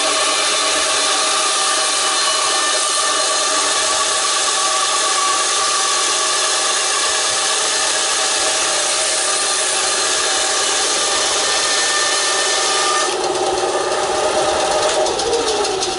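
WEN BA3959 9-inch benchtop band saw running with its blade cutting crosswise through a firewood log: a steady loud sawing over the belt-driven motor's hum. About thirteen seconds in the sound turns rougher, and near the end the motor's pitch starts to fall as it winds down.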